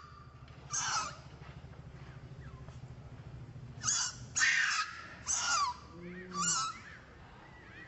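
A baby macaque crying in shrill, wavering squeals: one about a second in, then four in quick succession near the end.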